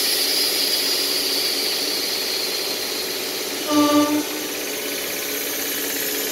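Three-phase ICF-built EMU local train giving a steady electrical hum from its traction equipment. A sudden hiss of air starts at the outset and fades over the first few seconds. About four seconds in a short two-part horn-like tone sounds as the train begins to move.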